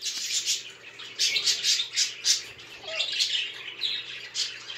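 Amazon parrot giving short, harsh squawks and chatter in three bursts, a few seconds apart.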